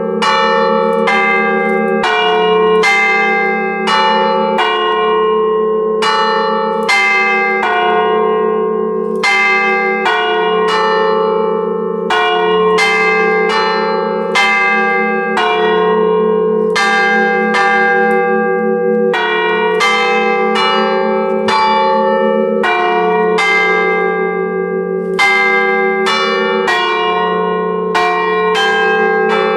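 Church bells chimed on an Ellacombe apparatus, hammers striking the stationary bells one after another at roughly one stroke a second. Each strike rings out over a continuous deep hum from the bells, heard close up in the belfry.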